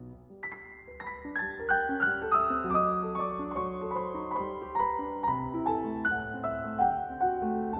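Piano music: after a short pause, a melody of struck notes stepping downward over held lower notes.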